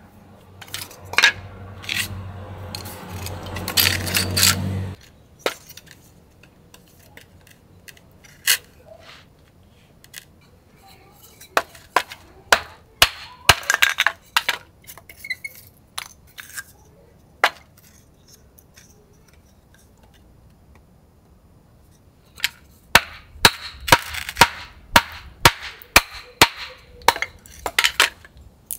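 A wooden baton striking the spine of a fixed-blade knife to split small pieces of wood: sharp, separate knocks, in irregular groups with pauses between. A steady low hum runs under the first five seconds and stops abruptly.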